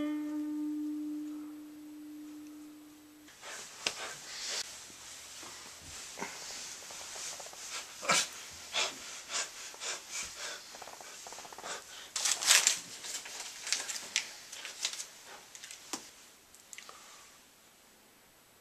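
An acoustic guitar note rings for about three seconds and cuts off suddenly. Then comes a person's heavy, irregular panting in short breathy huffs, loudest about twelve seconds in.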